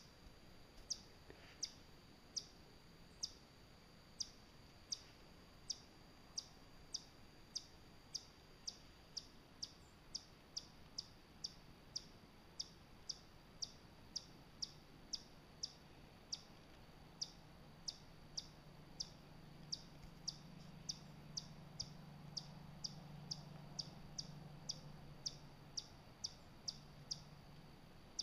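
A short, high chirp repeated steadily about two times a second, coming a little faster after the first few seconds. Under it runs a faint low hum that grows louder in the middle.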